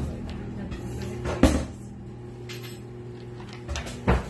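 Door being handled: a few sharp knocks and clunks, the loudest about a second and a half in and another near the end. A steady low hum runs underneath.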